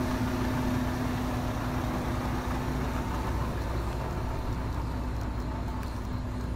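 Outdoor street traffic noise with a steady engine hum.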